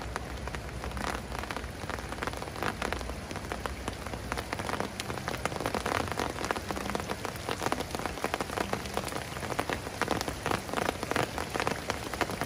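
Steady rain falling on a pond, a dense patter of drops hitting the water, growing a little heavier in the second half.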